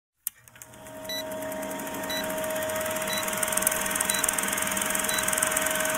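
Old film-projector countdown sound effect: a projector running with crackle and a steady hum, fading in over the first couple of seconds, with a short high beep about once a second as the numbers tick down.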